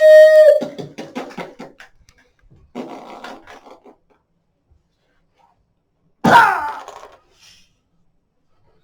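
A child's voice making play-battle sound effects: a held cry that breaks into short stuttering bursts, a rasping noise about three seconds in, then after a pause a sudden loud cry that falls in pitch about six seconds in.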